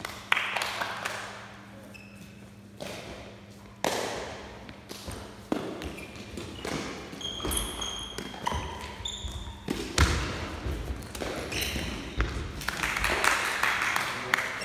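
Irregular sharp thuds and knocks ringing in a large gym hall from foot-shuttlecock (lábtoll-labda) play: kicks, footfalls and the shuttlecock landing. A few short high squeaks come in the middle, and a low hum runs underneath.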